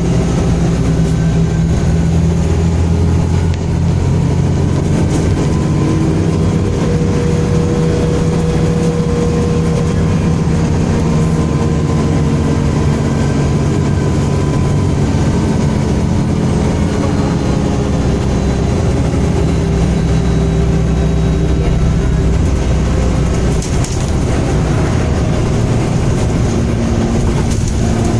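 MAN Enviro 300 single-deck bus running, a steady low engine drone with a thin higher tone above it that rises and falls slowly.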